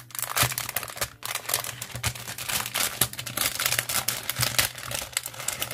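Clear plastic cellophane sleeve crinkling and crackling steadily as hands handle it and pull it open.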